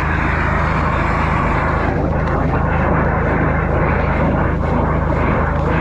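High-pressure drain jetter running steadily, a constant engine drone with a rushing noise over it, as its hose jets up a stormwater pipe blocked with clay dirt.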